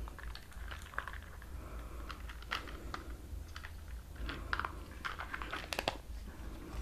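Small screwdriver backing a screw out of a toy RC car's plastic battery cover: faint, scattered clicks and scrapes of metal on plastic, and the cover comes away near the end.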